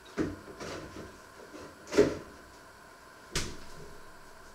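Someone handling things in a kitchen: three sharp knocks, the loudest about two seconds in, with lighter clatter between them.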